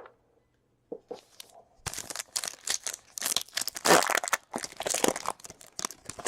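A foil trading-card pack wrapper being torn open and crinkled, a dense run of irregular crackles starting about two seconds in.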